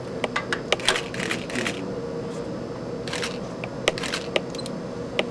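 Paper index card burning in a vertical holder: irregular crackling clicks and short rushes of flame, with a steady low hum underneath.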